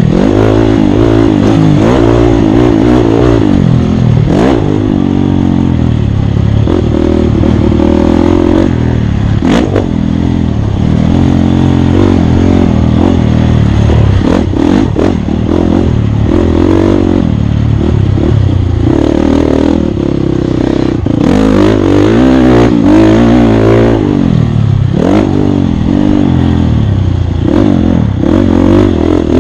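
Off-road dirt bike engine revving up and down over and over as it is ridden hard through a race course, the pitch climbing and dropping every second or two, with a few sharp knocks and rattles from the bike over rough ground.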